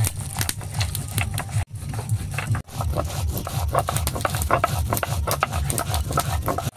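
Cumin seeds being ground on a shil-nora, a flat stone grinding slab worked with a stone roller: quick, repeated rubbing and scraping strokes of stone on stone. There are two short breaks early on before the strokes run steadily.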